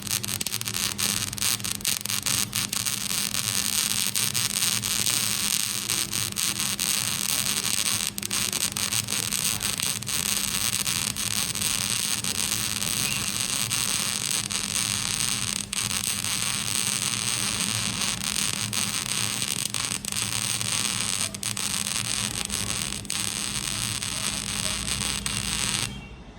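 Electric arc welding: a steady, loud crackle and sizzle of the arc with a constant low hum, cutting off suddenly near the end as the arc is broken.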